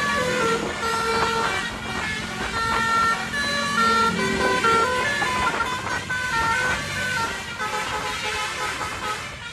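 Telolet basuri musical air horn playing a fast melody, its steady horn tones stepping from note to note, with a low steady hum under the first half.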